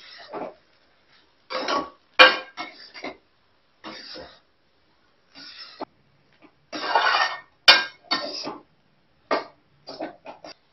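Metal spatula scraping and clinking against a metal kadai as fried rice is stirred and tossed, in irregular short strokes with a couple of sharp knocks.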